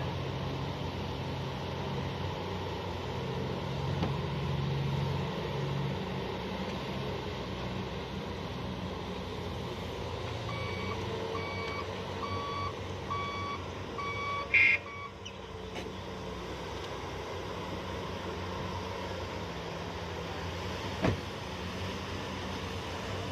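Heavy mining machines, a Komatsu HD785 haul truck and a PC2000 excavator, run steadily. About ten seconds in, a reversing alarm beeps about six times, then a short loud blast. A single sharp knock comes near the end.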